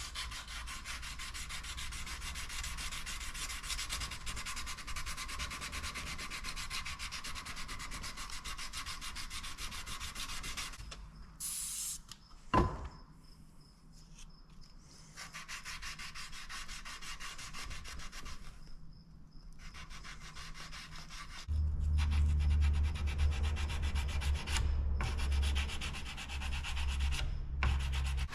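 Sandpaper rubbed by hand over a hardened-steel knife blade in quick, even strokes, stopping twice, during the fine-grit (320 to 400) finishing stage. A single sharp click comes near the middle, and a loud low rumble sets in about three-quarters of the way through.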